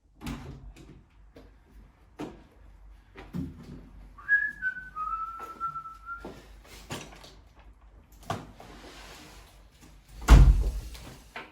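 Scattered knocks and clunks in a small room, with a short high whistling tone about four seconds in, a hiss and then a loud thump near the end.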